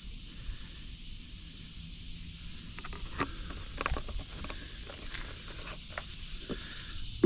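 Steady background hiss with a few scattered light knocks and clicks.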